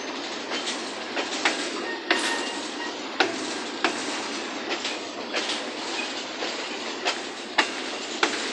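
Freight train wagons rolling past: a steady rolling noise of steel wheels on rail, with sharp clacks every half second to a second as the wheels cross rail joints.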